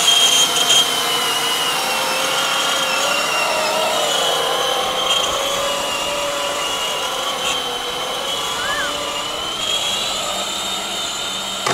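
12-volt Power Wheels Jeep Wrangler ride-on toy's electric drive motors and gearboxes whining steadily while it drives, the pitch wavering slightly.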